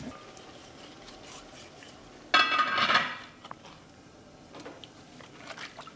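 Kitchen clatter of dishes and utensils being handled, with one sudden loud ringing clatter a little over two seconds in that fades within about a second, then a few small clicks.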